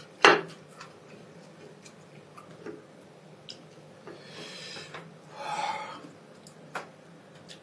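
Spicy instant noodles being slurped in one loud, short pull just after the start, then chewing with small scattered clicks and two breathy exhales around the middle.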